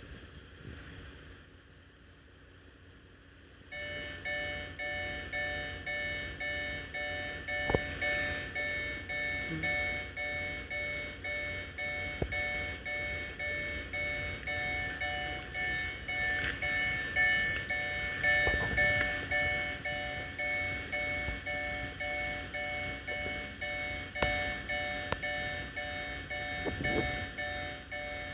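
Japanese railway level crossing's electronic warning bell, starting about four seconds in and ringing in steady, evenly repeated dings.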